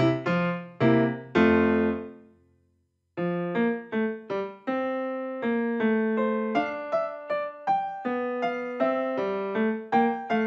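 Background piano music: a phrase of notes fades out about two seconds in, there is a brief silence, and a new light piano tune of evenly paced notes starts about three seconds in.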